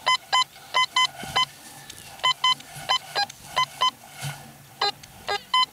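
Fisher F75 metal detector sounding short, high electronic beeps, mostly in quick pairs, as its search coil is swept back and forth over the ground. These are its target signals. A few beeps are a little lower in pitch than the rest.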